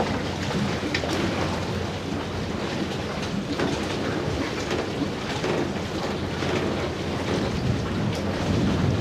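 Wind buffeting the microphone: a steady rumbling rush with a few faint clicks.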